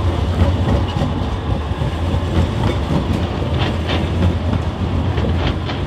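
Articulated low-floor tram running past on street track: a steady low rumble of wheels on rail, with irregular sharp clicks from the wheels on the track.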